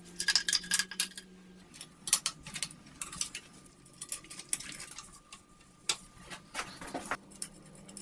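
Scattered light clicks and knocks of hand tools and metal and plastic engine parts being handled on a bare diesel engine, coming in quick clusters with short pauses between.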